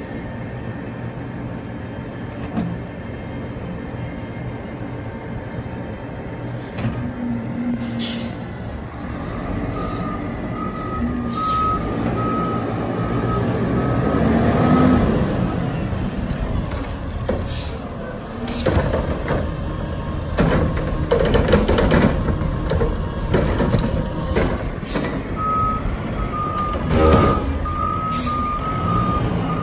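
Front-loader garbage truck's diesel engine idling, then pulling away and passing close by. A reversing alarm beeps evenly for a few seconds, a third of the way in and again near the end. Air brakes hiss sharply several times.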